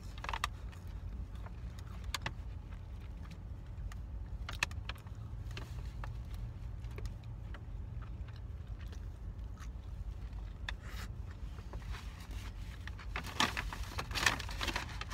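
Close-up eating sounds: chewing, with small clicks and rustles, over a steady low rumble inside a car. A little before the end comes a louder crinkling of the paper wrapper as she bites into the lettuce-wrapped burger.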